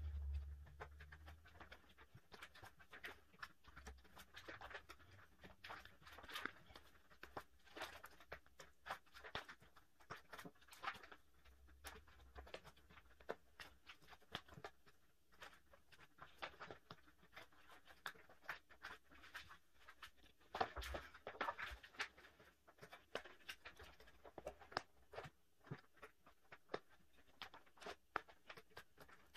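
Faint rustling and crackling of clear plastic card sleeves in a three-ring binder as the pages are turned and handled, with many small clicks and taps.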